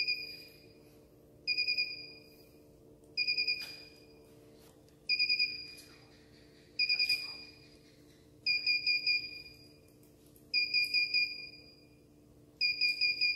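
Electronic buzzer beeping in quick groups of four or five short high beeps, a group about every two seconds, over a steady low hum from the cooling rig's fan and water pump.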